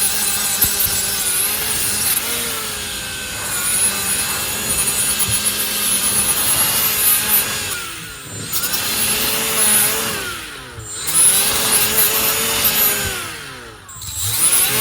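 Milwaukee M12 FUEL right angle die grinder spinning a 3M bristle disc brush against a steel drill chuck, scrubbing off surface rust. The motor's pitch wavers under load, and three times in the second half it winds down and spins back up.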